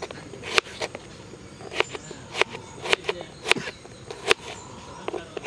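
Kitchen knife slicing an onion on a wooden cutting board: about six sharp knocks of the blade hitting the board, irregularly spaced half a second to a second apart.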